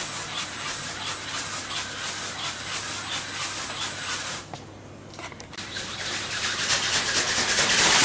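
Radio-controlled pteranodon ornithopter (Pteranodon64LC) flapping its film-covered wings: a rhythmic rustling beat of a few wingbeats a second. About halfway through the sound drops away for roughly a second, then returns louder with faster, denser strokes.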